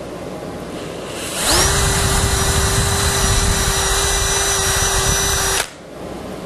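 Cordless drill boring a quarter-inch hole into the end grain of a wooden pallet runner: the motor winds up quickly about a second and a half in, runs at a steady pitch for about four seconds, then cuts off suddenly.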